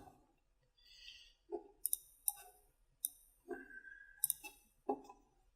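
A few faint, scattered computer mouse clicks, spaced irregularly about half a second to a second apart.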